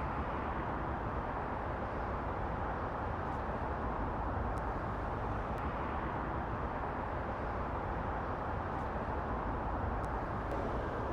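Steady hum and hiss of distant road traffic, even in level throughout, with no single vehicle standing out.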